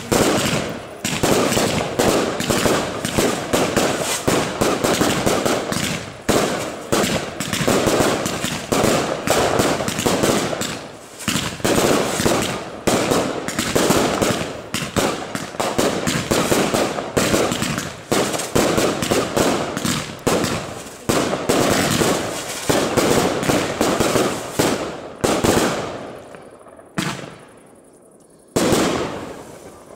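Fireworks display: a rapid, continuous barrage of aerial shell launches and bursts, bang after bang. The barrage thins out near the end, with one more loud bang just before it closes.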